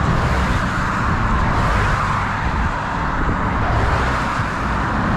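Cars passing close by on a highway: steady tyre and road noise.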